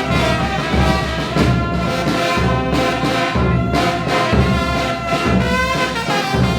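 A Mexican brass banda playing: sustained brass notes over a pulsing low bass line.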